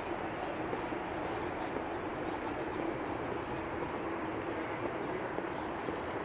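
Steady city street traffic noise, an even rumble and hiss with no distinct events.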